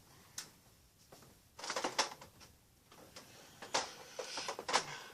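Rummaging while searching for a lost foam dart: objects shifted and knocked about, with a couple of sharp clicks and two spells of rustling and clattering.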